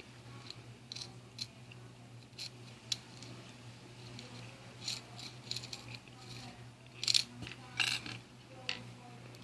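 Metal lock picks working in a clear practice lock: scattered sharp clicks and scrapes of the tools against the lock's pins and keyway, coming in quick clusters about five seconds in and again between seven and eight seconds, over a low steady hum.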